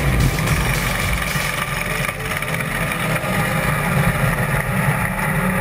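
Top Fuel dragster's supercharged nitromethane V8 on a run, heard through an onboard camera: loud, steady engine and wind noise.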